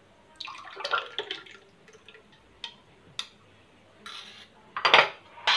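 Strawberry and orange juice with soaked sabja seeds being spooned from a steel bowl into a glass: liquid splashing and dripping, with a few short clicks of the steel spoon against the bowl and glass.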